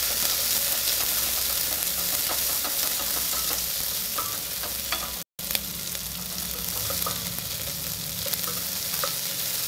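Sliced onions sizzling in hot oil in a steel pressure cooker while a spatula stirs them, with light scraping clicks against the pot. The sound cuts out for a split second about five seconds in.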